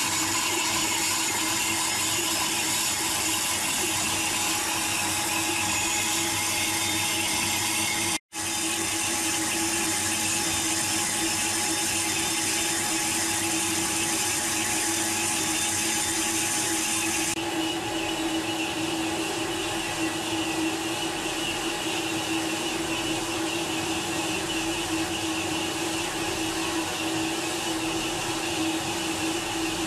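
Metal lathe running steadily while boring out the inside of a thick steel cylinder sleeve, a constant machine hum under the noise of the cut. The sound drops out for an instant about eight seconds in.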